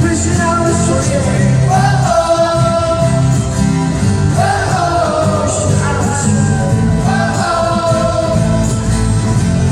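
Live pop-rock band playing, with sung vocal phrases over the band.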